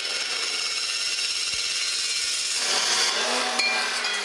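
Abrasive chop saw's cut-off wheel grinding through 3-inch steel exhaust tube, a steady loud grinding whine. Near the end the wheel breaks through the pipe and the sound thins to a higher whine.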